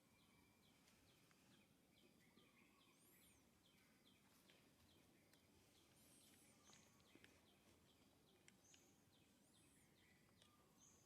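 Faint outdoor ambience: birds giving short, high, arched chirps now and then, over a steady ticking call repeated about twice a second and a low hiss.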